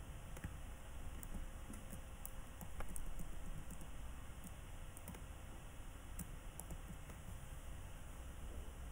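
Faint, irregular clicks over a low steady background hum, a little louder about three seconds in.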